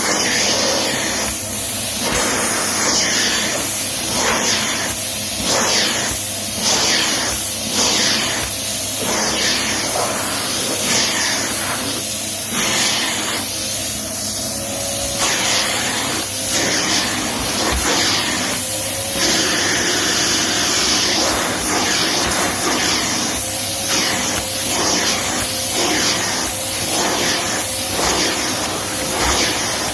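Vacuum cleaner running steadily, its rushing hiss swelling and dipping every second or so.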